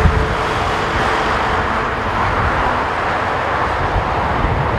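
Airbus A320neo jet engines running steadily on the landing rollout, heard in the open with gusts of wind buffeting the microphone.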